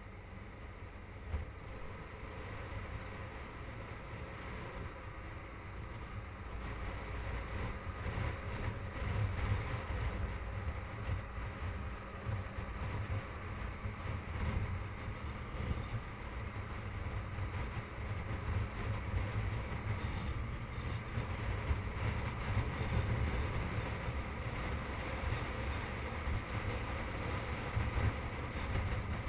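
Motorcycle riding on a highway: its engine runs under a low rumble of wind buffeting the microphone, the whole growing louder over the first ten seconds or so as speed builds.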